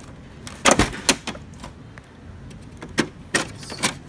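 Sharp plastic clicks and knocks from an HP LaserJet MFP 135a laser printer being opened and its toner cartridge handled: two knocks close together about a second in, then three more near the end.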